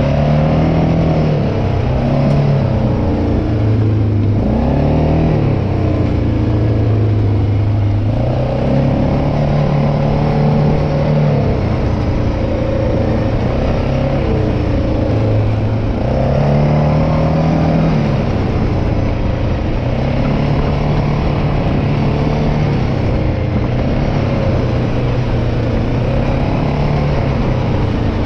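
ATV engine running under way on a rough gravel trail, its pitch rising and falling several times as the throttle opens and closes.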